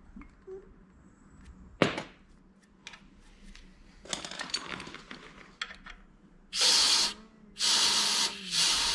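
Compressed air hissing in two bursts, the second longer, as it is blown into a copper oil-line fitting to leak-test it with soapy water. A sharp knock about two seconds in.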